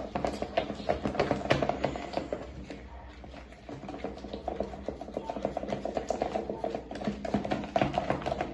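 Thick slime mixture of glue, toothpaste and toilet paper being stirred quickly in a container: rapid, irregular clicks and taps that ease off for a moment about three seconds in, then pick up again.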